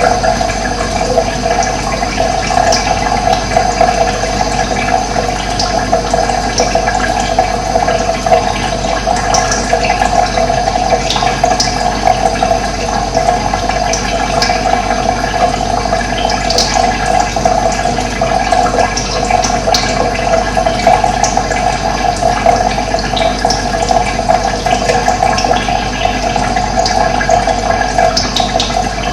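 Steady running water, an unbroken flow, with a few short, high bird chirps now and then.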